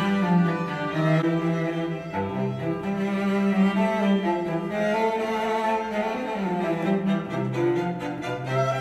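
Classical music with long held notes over a low bass line, played back through PreSonus Eris studio monitor speakers. Partway through, playback switches from the smaller E4.5 pair to the E5 XT pair.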